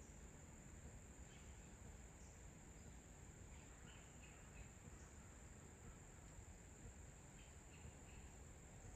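Faint outdoor ambience of a steady, high-pitched insect trill, with a few faint short chirps scattered through it.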